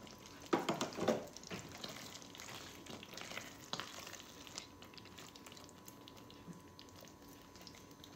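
Silicone spatula stirring thick, creamy chicken curry in a nonstick pot, wet squelching and scraping strokes that are loudest about a second in and die away after about four seconds. Under them is a faint steady simmer from the gravy still on the flame.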